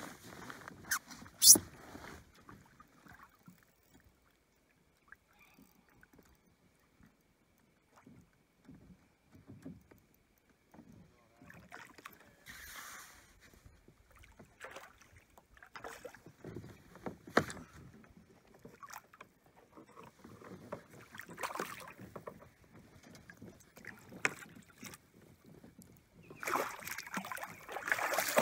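Lake water lapping and splashing against a Hobie Compass kayak in scattered bursts. There is a sharp click about a second and a half in, and a louder stretch of splashing beside the hull near the end.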